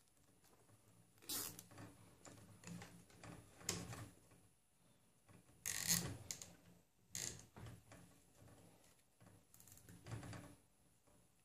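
Faint handling of a nylon zip tie on a rubber timing belt, with a handful of short rasping scrapes as the zip tie is threaded and drawn through its ratchet lock, the loudest about six seconds in.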